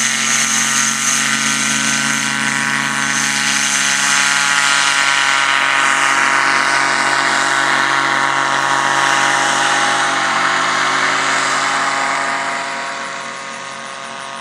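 Powered parachute's engine and propeller running steadily at takeoff power through the takeoff roll and lift-off. The sound drops off in level about three-quarters of the way through as the craft climbs away.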